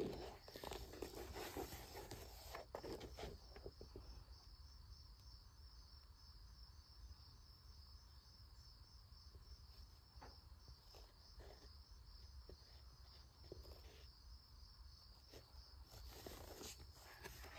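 Faint rustling and soft clicks of a paperback book being handled and turned over, mostly in the first few seconds, over a steady, faintly pulsing high-pitched background chirr.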